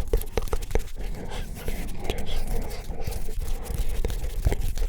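Unintelligible close-up ASMR whispering mixed with hand sounds: many quick, sharp clicks and rubbing.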